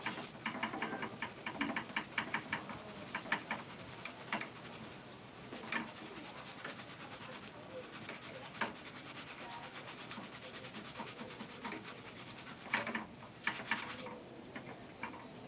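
Dried rice puffing in hot cooking oil in a mesh strainer, crackling and popping: a quick run of pops as it goes into the oil, scattered pops after that, and another flurry near the end.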